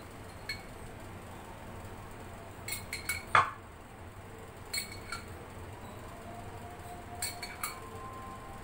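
Scattered light clinks of glass as a glass jar of pizza sauce and a glass baking dish are handled while the sauce is spread over fries; the loudest clink comes about three and a half seconds in.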